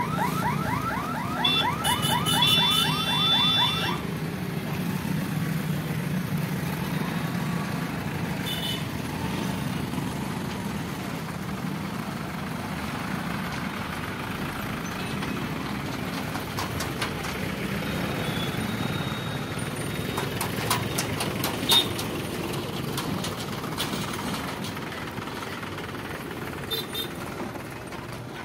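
A warbling electronic warning siren cuts off about four seconds in. After it, the engines of road vehicles rumble steadily as a small truck and a diesel tractor pulling a loaded trolley cross the level crossing, with a sharp knock about 22 seconds in.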